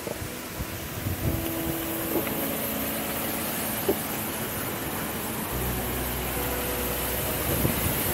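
Soft instrumental background music with held notes that change in steps, over a steady hiss. A deeper low tone comes in about five and a half seconds in.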